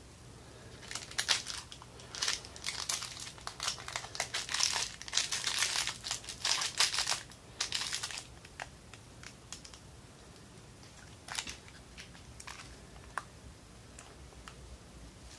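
Plastic packaging crinkling and rustling as it is handled, dense from about a second in until about eight seconds, followed by a few scattered clicks.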